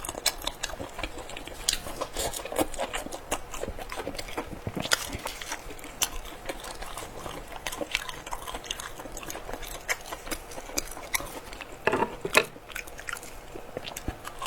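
Close-up crunchy chewing and biting of crispy fried pork intestines: irregular crisp crunches throughout, with louder bites about five seconds in and near twelve seconds.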